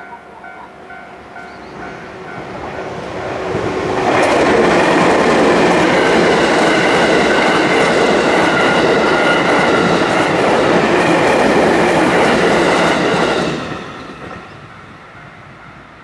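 A JR 211 series electric commuter train passes over a level crossing: its wheels and running gear clatter, building from about two seconds in, loud for about nine seconds, then fading quickly. The crossing's electronic warning bell sounds in repeating tones at the start and faintly again after the train has gone.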